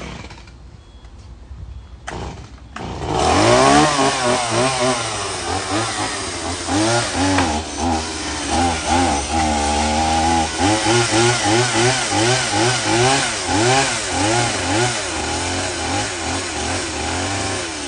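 Chainsaw starting up about three seconds in, then revving up and down over and over as it cuts limbs off a fallen tree.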